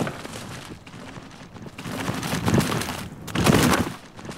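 Mountain bike's tyres rushing and crackling over a dirt forest trail as the rider descends. The sound dips early, then swells to its loudest around three and a half seconds in as the bike passes, and fades.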